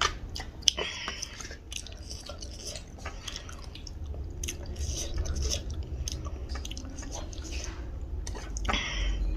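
Close-miked chewing and mouth sounds while eating a meal of rice and pork, with scattered light clicks and clinks of dishes.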